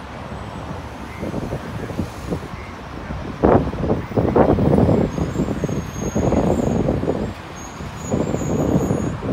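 Road traffic going by, with a vehicle passing loudly from about three and a half seconds in, and a smaller swell near the end.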